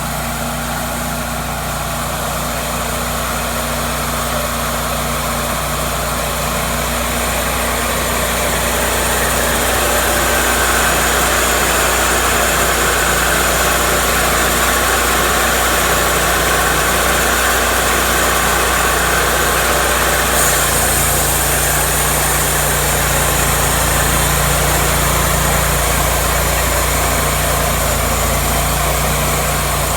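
Engine of a Cook's MP-32 portable band sawmill running steadily, growing louder about eight seconds in, with its sound changing abruptly about twenty seconds in.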